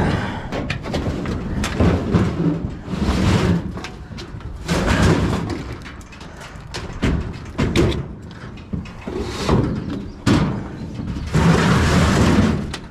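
Junk being handled and moved around: a run of clattering knocks, thumps and scraping, with louder bangs about five, ten and eleven seconds in.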